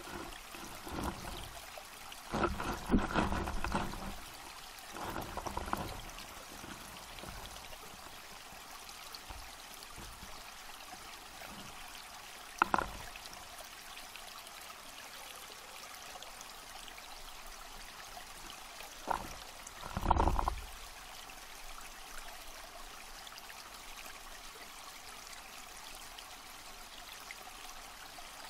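Steady water hiss heard underwater, from a submerged camera beside a baited fishing hook, with scattered knocks and bumps: a cluster between about two and six seconds in, a sharp click about halfway, and a louder thud about two-thirds of the way through.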